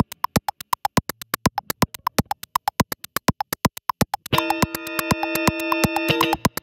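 Electronic music: a fast, even train of sharp clicks, joined a little past the middle by a held synthesizer chord of several steady tones that cuts off near the end.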